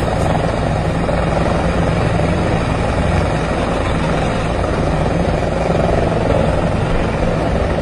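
Helicopter running steadily, heard loud from on board: a dense, even rotor-and-engine din with a low steady hum under it.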